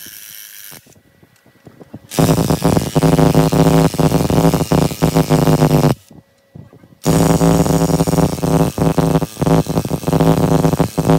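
Cordless impact wrench hammering bolts on a wheel hub bearing and steering knuckle, a rapid rattling hammer over a motor whine, in two bursts of about four seconds each with a pause between.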